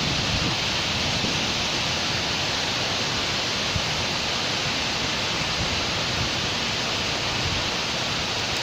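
Steady rain falling in a city street, an even hiss, with a low rumble of traffic underneath that is strongest near the start.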